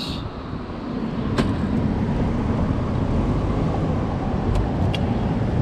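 Steady low outdoor rumble that swells over the first second and then holds, with a few faint clicks as mud-caked scrap metal is handled.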